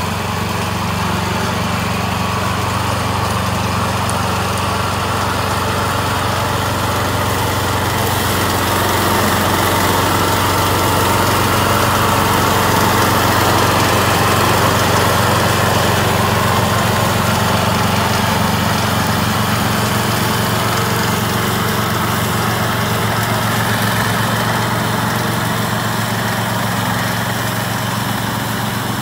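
Vezdekos TS 1000 walk-behind weed mower with its small petrol engine running steadily under load while its 1-metre deck cuts tall grass and weeds. It gets a little louder in the middle stretch.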